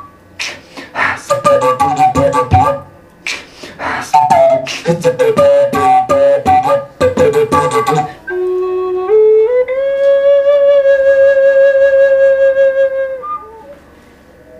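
Beatboxed rhythm of quick percussive mouth sounds for about eight seconds. Then a wooden Native American-style flute takes over, stepping up through a few notes and holding one long note that fades out near the end.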